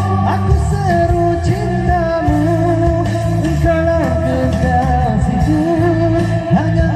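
A vocalist sings a melodic pop song live over amplified accompanying music with a steady bass line, heard through a stage PA system.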